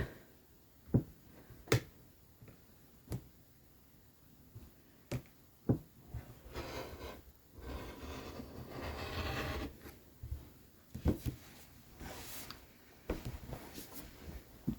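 Rotary cutter rolling through sweatshirt fabric along a ruler in two long rasping strokes, with a dull blade, between scattered sharp clicks and taps of the ruler and cutter being handled.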